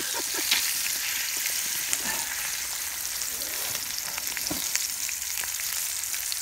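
Flour-breaded smelts frying in hot canola oil in a pan: a steady sizzle with many fine crackling pops.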